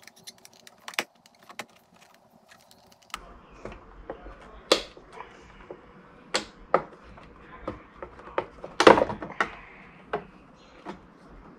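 Plastic pry tools clicking and knocking against a BMW M2 side-mirror cap and its housing as the cap is pried at to release its clips: a string of short, irregular clicks, with a louder clatter about three quarters of the way through.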